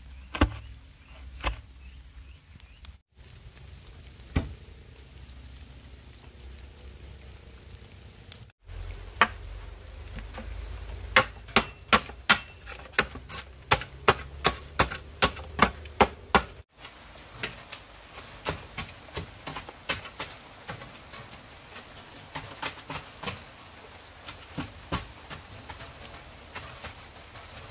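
Sharp knocks, like a blade or tool striking: a few single strikes, then a fast, even run of about two to three a second, then softer, irregular strikes near the end.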